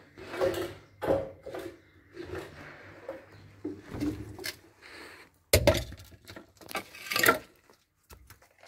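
Irregular clinks, knocks and scraping, as of broken tile and building rubble being handled and shifted, with two louder, sharper knocks past the middle.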